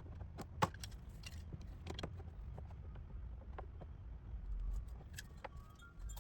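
Scattered light clicks and taps of a metal hose clamp and plastic intake parts being handled and fitted by hand, over a low steady rumble.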